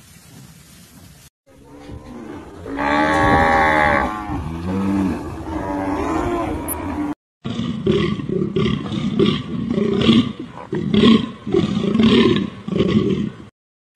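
A cow mooing: a long, wavering moo, loudest about three seconds in, trailing off in shorter calls. After a cut, a second animal gives a run of short, rough calls, about two a second.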